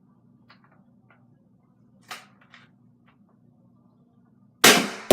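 Nerf Rival foam-ball blaster: a few faint clicks and a short sharp snap about two seconds in, then a loud sharp shot near the end followed by a few quick knocks.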